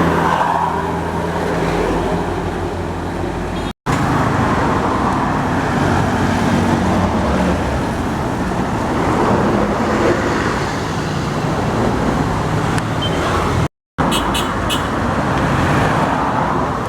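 Road traffic going past, with vehicle engines running and tyre noise. The sound cuts out completely for an instant twice, about four seconds in and near fourteen seconds in.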